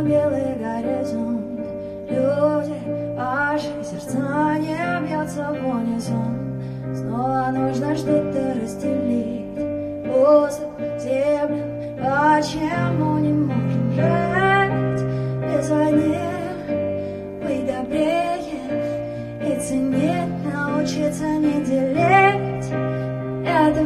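A woman singing live, accompanied by held chords on a keyboard that change about every two seconds.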